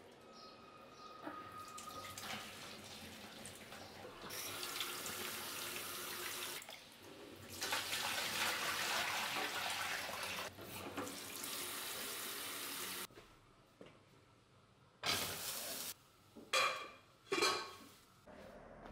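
Water pouring from an enamel stockpot into a stainless-steel sink, in surges for most of the first thirteen seconds: the first boiling water being drained off beef hooves. Near the end come a short rush of noise and two ringing metal clanks from the pot.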